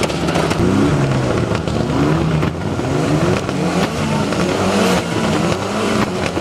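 Mitsubishi Lancer Evolution IX rally car's turbocharged four-cylinder engine accelerating hard, its pitch rising and dropping back several times as it shifts up through the gears.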